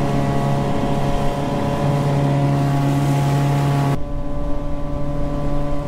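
Small boat's outboard motor running steadily at speed, with the rush of wind and water over it. About four seconds in, the rushing drops off while the engine's hum carries on.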